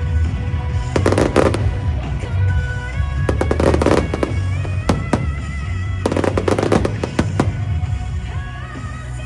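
Fireworks going off in several clusters of rapid crackling bangs, over loud music with a steady bass.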